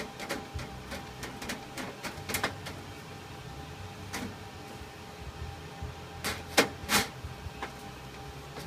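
Scattered light clicks and taps from handling, with a brief pair of knocks about two and a half seconds in and three louder knocks between six and seven seconds in, over a faint steady hum.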